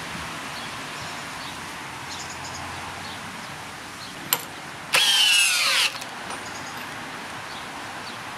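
Bosch GSB 18V-150 C cordless combi drill's motor whining for about a second, its pitch falling as it slows. A single sharp click comes just before it.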